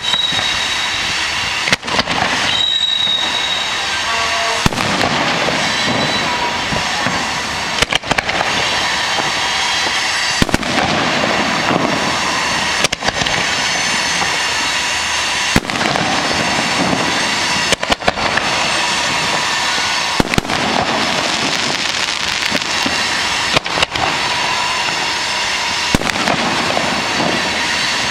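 Aerial fireworks display: shells launching and bursting in sharp bangs every couple of seconds over a continuous noisy wash of crackle.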